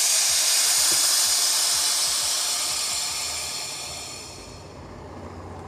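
Air suspension dumping air: the valves vent the air springs with a loud hiss as the car drops to its lowest position. The hiss fades steadily and is faint by about four and a half seconds in.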